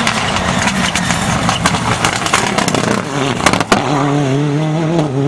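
Rally car engine at high revs as the car drives hard on a gravel stage, mixed with loose-surface noise and several sharp cracks in the first few seconds. From about four seconds in the engine settles into a steady, held note.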